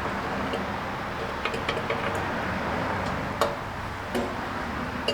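A few short, light metal clinks and knocks as parts are handled and offered up for fitting, over a steady background rush.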